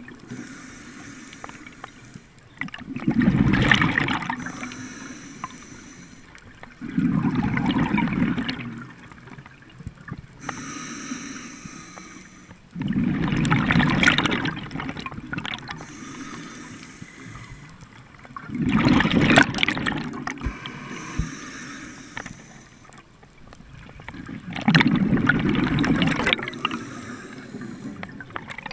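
A scuba diver breathing through a regulator underwater. Five loud rushes of exhaled bubbles come every five or six seconds, with a fainter hiss of inhaling between them.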